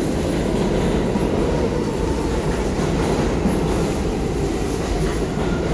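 New York City subway train running, a steady, loud rumble of wheels on rail with no break in it.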